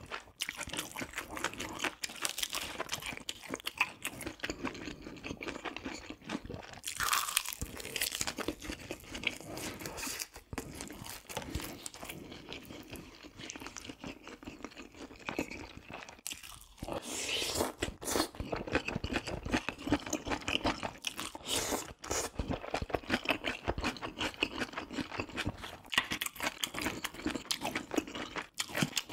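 Close-miked chewing and biting of food: a continuous run of small, moist mouth clicks and bites, with a brief pause about halfway through.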